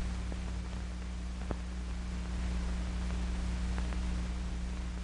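Steady hiss and low hum of an old film soundtrack, with a few faint clicks.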